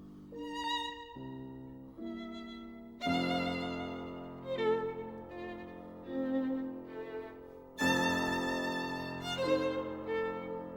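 Background music: a violin playing a slow melody with vibrato over a lower string or piano accompaniment, swelling in two phrases about three and eight seconds in.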